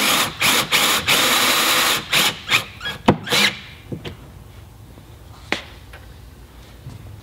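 Cordless drill driving a stainless steel screw through a jet ski sponson into the hull, in short trigger bursts with one longer run, stopping about three and a half seconds in. A few light clicks follow.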